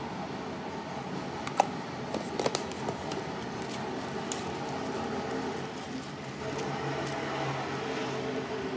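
Hands handling dog kibble in a ceramic bowl and a zip-top plastic bag: a few sharp clicks and crinkles, the loudest about a second and a half in and a small cluster a second later, over a steady background hum.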